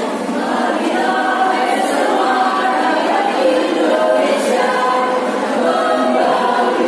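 Women's choir singing a march song in unison, the sung voices firming up about a second in.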